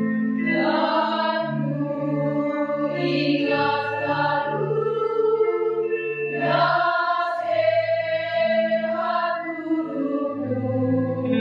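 Women's choir singing long, held phrases together, over a low instrumental accompaniment that holds steady bass notes beneath the voices.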